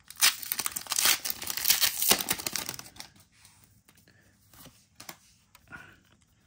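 A Pokémon booster pack's foil wrapper is torn open and crinkled for about three seconds, followed by fainter scattered rustling.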